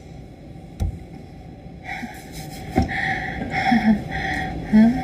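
A single light knock, then a run of breathy giggles and laughter from young women, getting louder toward the end.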